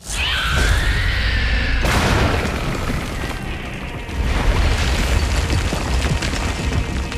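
Film action-scene effects: a sudden loud onset into booming blasts and a deep rumble, under dramatic score, with a high wailing tone over the first two seconds.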